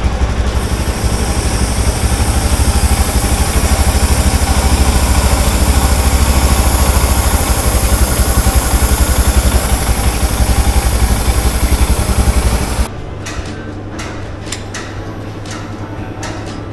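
Royal Enfield Scram 411's single-cylinder engine running steadily with the bike on its stand in gear, turning the rear wheel and chain, with a steady hiss of chain spray over it. The engine and hiss cut off abruptly about 13 seconds in, leaving quieter clicking.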